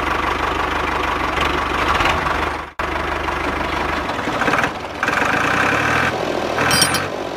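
Steady engine-like mechanical running noise, with a brief break almost three seconds in.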